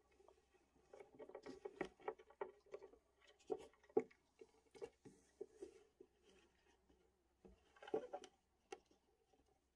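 Fingers sifting through dry sphagnum moss in a plastic deli cup: soft, irregular rustling and crackling in scattered bursts, loudest about four and eight seconds in.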